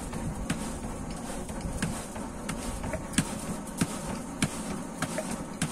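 Sharp light taps, irregular and roughly one every half second to second, as a silicone handle is knocked into a sledgehammer head to seat it. Insects keep up a steady buzz in the background.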